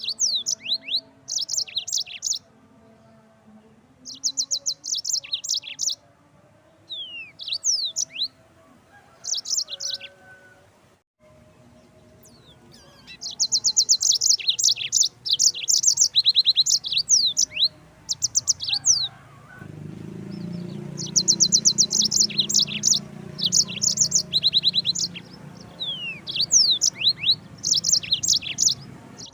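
Yellow-fronted canary (Mozambique canary) singing in repeated bursts of rapid buzzy trills and quick down-slurred whistles, each phrase a second or two long with short pauses between, the phrases running longer and closer together in the second half.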